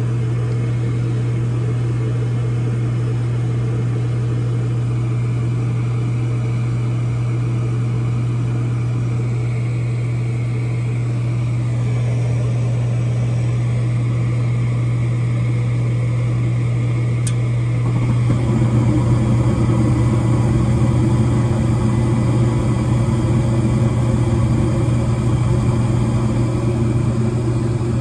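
York Diamond 80 gas furnace running: a steady hum from the draft inducer motor, then about 18 seconds in the gas burners light and the sound grows louder and rougher with the burning flames.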